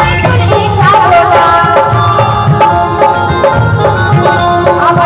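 Loud live folk-style band music through a PA system: a stepped melody of held notes over a steady beat of hand drums and a shaker.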